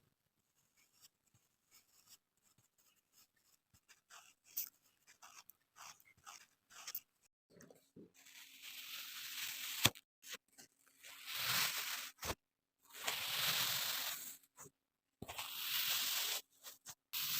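Kinetic sand being handled: faint scattered crackles for the first several seconds, then from about eight seconds in, four or five longer, louder gritty rustles of a second or two each.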